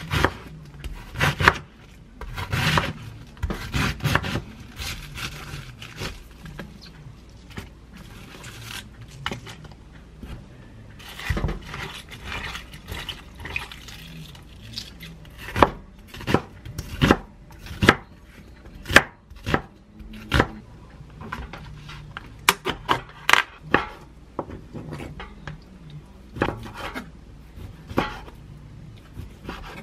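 Kitchen knife cutting on a wooden cutting board, with irregular sharp knocks of the blade against the wood, first through a head of cabbage and later through raw chicken breast. In between, cabbage leaves are handled in a plastic bowl of water.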